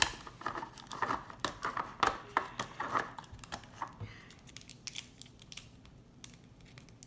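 Crinkling and small clicks of plastic toy packaging being handled, busiest in the first few seconds and sparser after.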